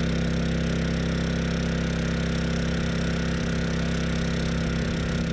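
Honda EU2200i inverter generator, converted to run on propane, running steadily under a heavy load of about 1,700 watts. Its single-cylinder four-stroke engine holds an even, constant drone.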